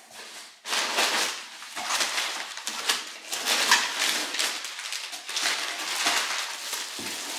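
Crumpled brown kraft packing paper rustling and crinkling as it is pulled out of a cardboard box, starting abruptly about a second in and going on in uneven bursts.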